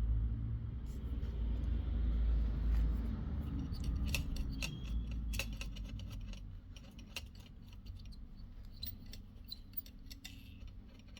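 Light clicks and taps of small metal hand tools working on a circuit board, over a low hum that fades away during the first half.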